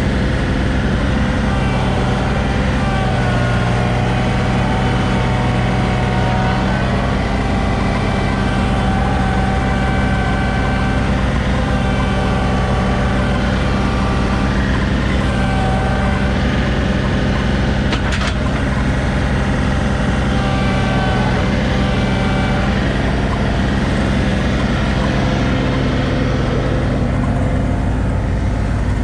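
John Deere compact tractor's diesel engine running steadily, with a single sharp click about two-thirds of the way through.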